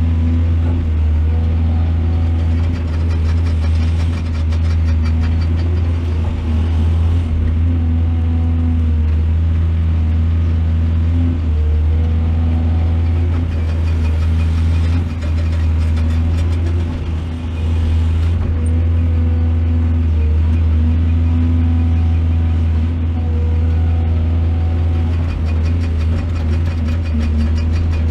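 Excavator's diesel engine running steadily with a deep low rumble, its pitch rising and falling a little as the machine works.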